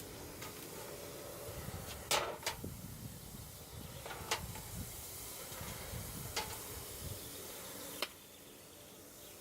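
Forge running with a steady hiss and low rumble, with a few sharp metallic clicks scattered through it; the hiss drops a little near the end.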